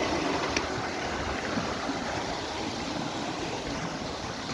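Steady rush of river water pouring over rocks, with a rumble of wind on the microphone underneath.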